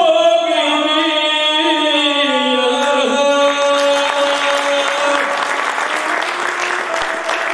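A guslar singing the drawn-out last notes of a Serbian epic song to the bowed single string of the gusle, the voice gliding down before the singing stops about three and a half seconds in. Audience applause then rises and carries on.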